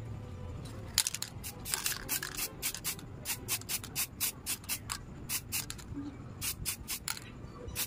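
Aerosol spray paint can fired in many short bursts of hiss, about two or three a second, as model-kit parts are coated.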